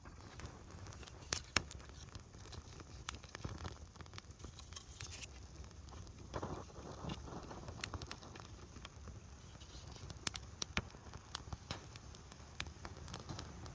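Newly lit campfire crackling as the kindling catches, with irregular sharp snaps and pops.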